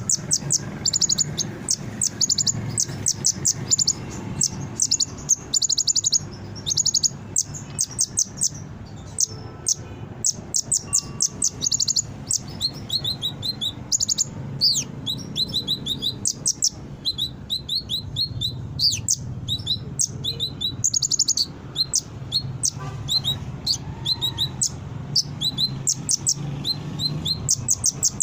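Kolibri ninja (konin) sunbird singing: rapid runs of thin, high chips and short trills, repeated over and over, over a steady low hum.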